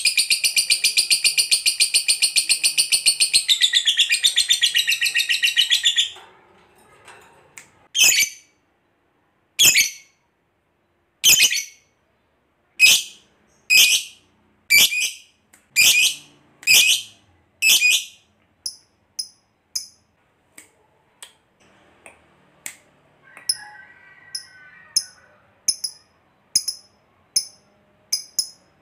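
A lovebird's long, rapid, high-pitched chattering trill, its 'ngekek', breaks off about six seconds in. It is followed by sharp single shrill calls about one a second, and then by fainter, quicker high chirps.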